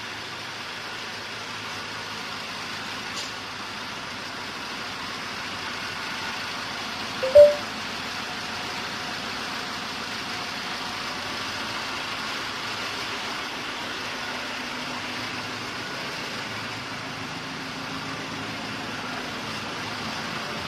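Shangchai 12V135BZLD1 V12 diesel engine of a 540 kW generator set running steadily. About seven seconds in, a short, loud tone sounds briefly over it.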